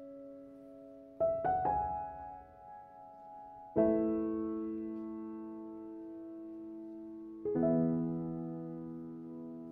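Slow, soft piano music: a few quick notes, then single chords struck every few seconds and left to ring out.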